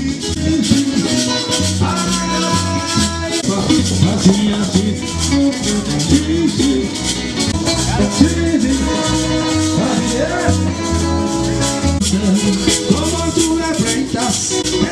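Background music with a steady beat, a shaker keeping time over a bass line and melody.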